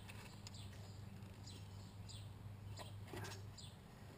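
Faint, repeated short high chirps of a small bird, each dropping in pitch, over a low steady hum, with a brief clatter about three seconds in.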